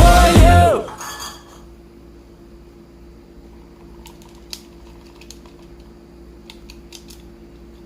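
A song with singing cuts off about a second in. A steady low hum follows, with a few scattered light clicks and clinks over it.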